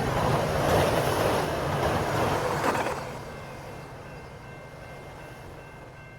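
Passenger train passing, its wheels rumbling and rattling over the rails, then fading away about halfway through.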